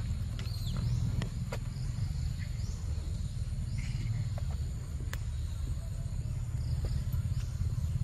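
Forest ambience: a faint steady insect drone with a few faint short chirps, over a steady low rumble, with a few small clicks.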